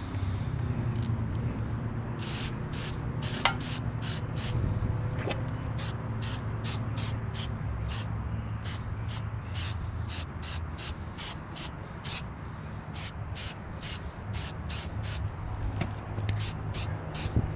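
Aerosol can of cast aluminum spray paint being sprayed in short hissing bursts, about two a second, over a steady low hum.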